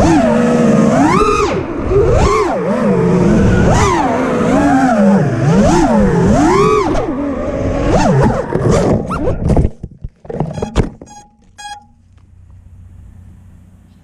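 FPV quadcopter's brushless motors whining loudly, the pitch swinging up and down with throttle punches. The motors cut off abruptly near ten seconds in, followed by a few sharp clicks and then only a faint low hum.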